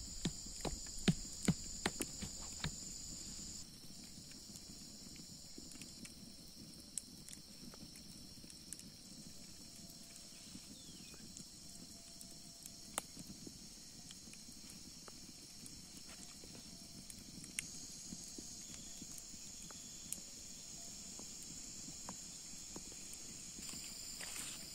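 A small hammer knocking on limestone blocks as they are tapped into a low stone wall, a quick series of sharp knocks in the first three seconds. After that, a steady high insect buzz with a few scattered single knocks and snaps.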